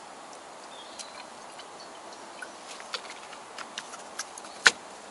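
Plastic tomato-juice bottle being handled and capped, with scattered light plastic clicks that come more often in the second half, then a single sharp knock near the end, over a faint steady hiss.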